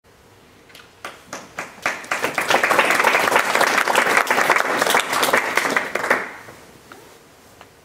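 Audience applauding: a few scattered claps about a second in build into full applause, which dies away a little after six seconds, leaving a couple of stray claps.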